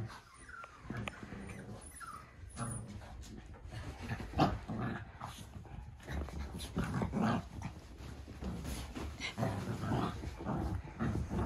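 Cavalier King Charles spaniel puppies play-fighting, with short puppy growls and a few high yips over scattered scuffling and patter of paws.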